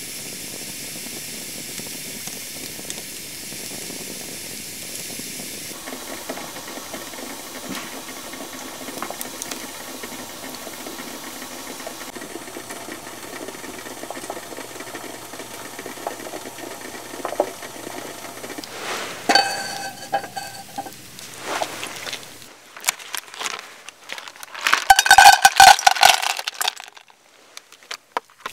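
Wood fire burning in a folding steel fire grill: a steady hiss with scattered crackles. Sharp metallic clinks come later, then a loud clatter with ringing near the end, metal cookware being handled.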